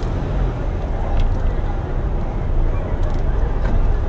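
Night street noise at a crowded outdoor party: indistinct voices over a steady low rumble, with a few faint ticks.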